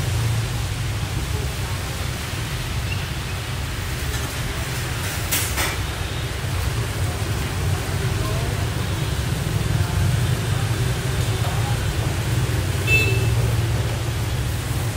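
Steady low background rumble with faint voices, broken by a sharp clink about five seconds in and a short ringing clink near thirteen seconds, as a steel ladle works in a stockpot.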